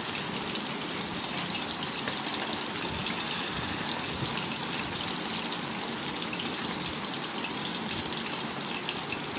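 Anchovies deep-frying in hot oil in a small steel pan: a steady sizzle with fine crackling.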